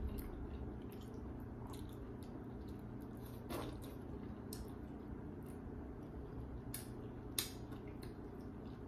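A person chewing steamed fish eaten by hand, with soft wet mouth sounds and a few sharp clicks, the loudest about seven seconds in, over a steady low hum.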